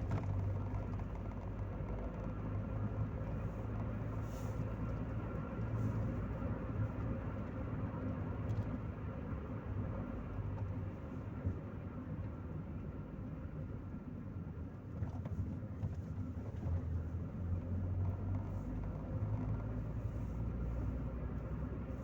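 Chevrolet Corsa Maxx driving, heard from inside the cabin: a steady low rumble of engine and road noise that swells and eases slightly with speed.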